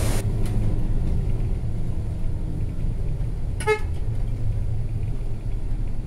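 Bus engine running steadily, heard from inside the cabin as a low rumble. About three and a half seconds in comes one short toot of the horn, warning walkers on the road ahead.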